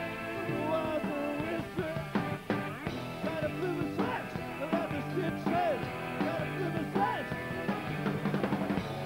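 A live rock band playing with electric guitars, bass and keyboard, with bending lead notes over a steady beat.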